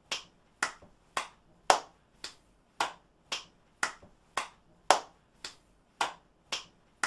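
One person's hand claps repeating in a steady rhythm, about two a second, some claps louder than others.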